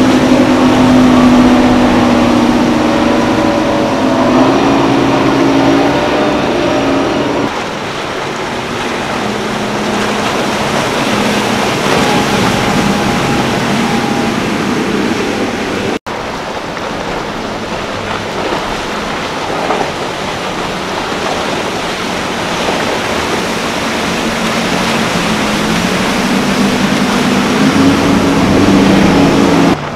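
Outboard motors on fast boats running at speed. An engine drone sags slightly in pitch as one boat passes in the first several seconds, then gives way to the rush of hull spray and wake. Another engine drone rises near the end, and the sound breaks off abruptly for an instant about halfway.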